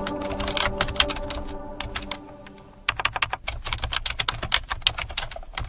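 Computer keyboard typing, rapid key clicks, over music that fades out during the first three seconds. The typing thins briefly, then comes back louder about three seconds in.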